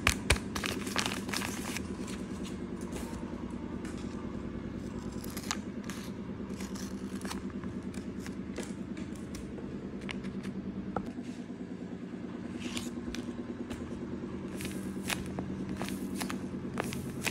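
Kraft paper blind bag crinkling and rustling as it is handled, with scissors snipping across its top to open it and a paper squishy being squeezed near the end. Scattered clicks and crackles sit over a steady low hum.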